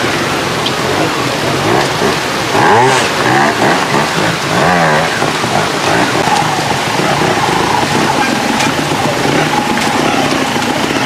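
Trials motorcycle engines revving in short throttle blips, rising and falling in pitch several times, then running at a steadier pitch, over a constant rushing hiss.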